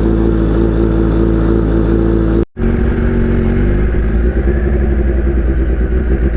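Kawasaki Ninja H2's supercharged inline-four running loud through an unbaffled Vandemon exhaust. The sound cuts out for a moment about two and a half seconds in, and the engine note starts to rise near the end.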